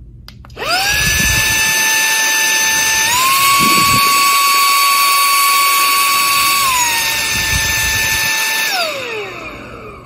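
An iMMDOKIN Vacuum Pro 1 cordless handheld vacuum is switched on, and its motor spins up to a steady high whine. The pitch steps up about three seconds in as the vacuum is switched to strong mode, then drops back to regular mode about seven seconds in. Near the end the vacuum is switched off and the motor winds down.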